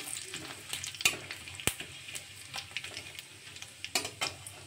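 Cumin seeds and bay leaves sizzling and crackling in hot mustard oil in a kadai, stirred with a metal spatula. A few sharp clicks stand out, loudest about a second in and near the end.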